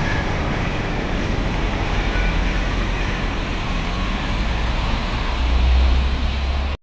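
Steady outdoor city-street noise, a wash of traffic with a heavy low rumble that swells near the end, then cuts off suddenly.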